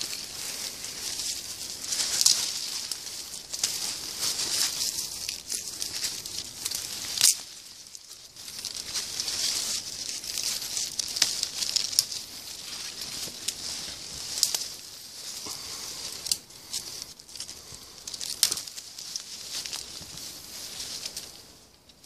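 Hazel leaves and twigs rustling and crackling as they are pushed aside and handled close by, with several sharp snaps among the steady rustle.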